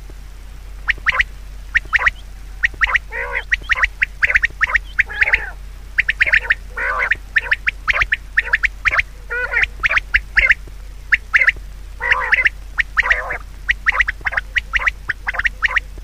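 Birds calling: a rapid run of short, harsh calls, several a second, with longer drawn-out calls mixed in.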